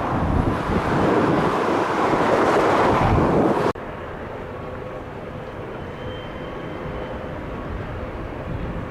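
Class 60 diesel locomotive's eight-cylinder Mirrlees engine running as it moves slowly hauling loaded stone wagons. A loud rushing noise in the first few seconds drops away abruptly about four seconds in, leaving a quieter, steady engine sound with faint tones.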